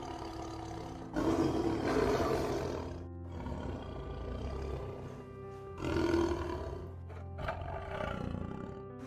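Tiger roaring twice, about a second in and again about six seconds in, with a shorter call near the end, over steady background music.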